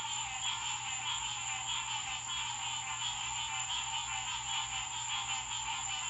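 Night chorus of many frogs calling at once: a dense, continuous din of overlapping pulsing calls. A steady high-pitched tone runs above it.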